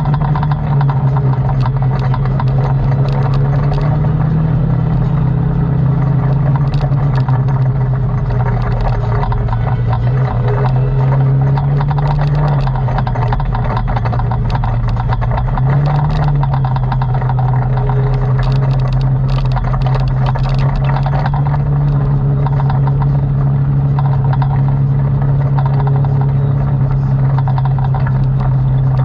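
ATV engine running steadily while being ridden, its pitch rising and falling slightly with the throttle, with scattered clicks and rattles.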